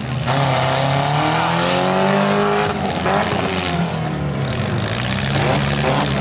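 Several demolition derby cars' engines revving, their pitches rising and falling and overlapping one another.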